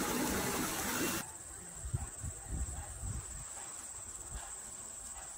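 Outdoor garden ambience: a steady high-pitched insect trill runs under low, irregular thumps and rumbles. For about the first second a loud rushing noise covers everything, then cuts off abruptly.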